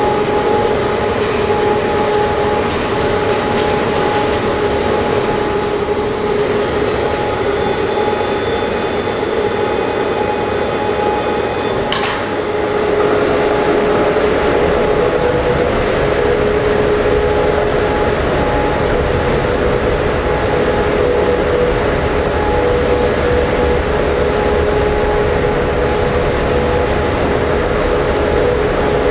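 Rail-mounted transport trolley of a wood impregnation plant travelling along its rails: a steady machine whine over a low rumble. A sharp click comes about twelve seconds in, after which the whine settles at a slightly higher pitch.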